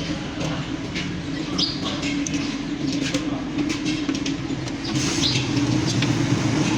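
An engine running steadily with an even hum, with a few short high chirps or ticks over it.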